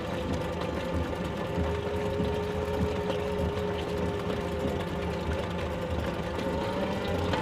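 Small electric drive motor of a home-built barrel car whining steadily as it drives along, its pitch sagging slightly, over a low rumble.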